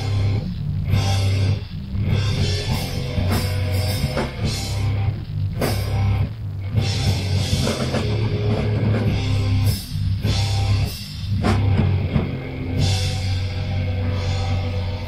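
Live heavy hardcore metal band playing: distorted electric guitars, bass and a drum kit with crashing cymbals. The riff stops short several times in quick breaks before the band comes back in.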